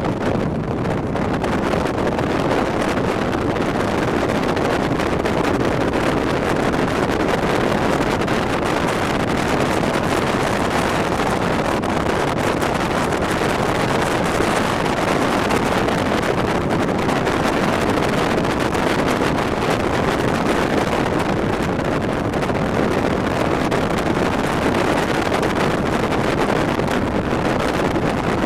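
Steady rushing wind buffeting the microphone, mixed with the road noise of a moving vehicle.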